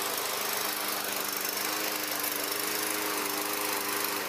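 Gas walk-behind lawn mower engine running steadily.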